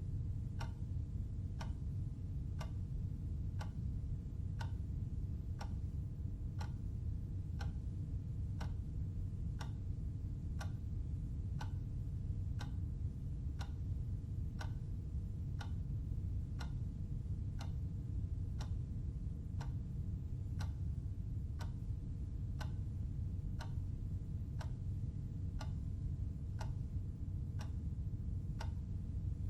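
Clock ticking steadily about once a second, each tick a short sharp click, over a steady low hum.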